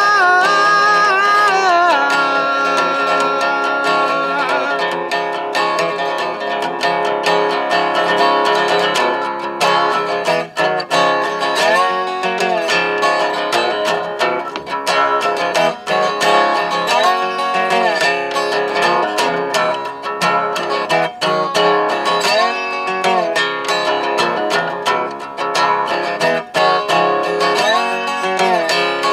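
Resonator guitar played solo, a steady run of plucked notes with a few bends every few seconds. A held sung note fades out in the first couple of seconds.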